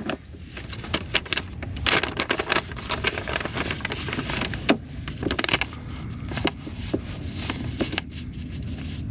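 Irregular clicks, knocks and scraping of parts being handled and worked into place by hand, with no steady rhythm.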